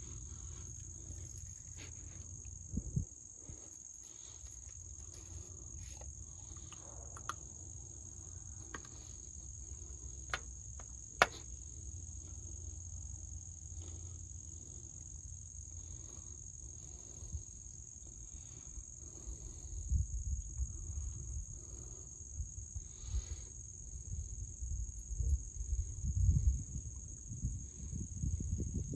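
Steady, unbroken high-pitched insect chorus. A few sharp clicks sound over it in the first half, and low thumps and rumbling grow in the last third.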